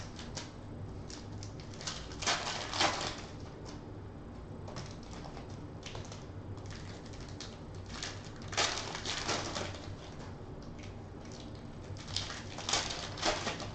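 Foil trading-card pack wrappers crinkling and tearing as they are opened by hand, in several short bursts of crackling.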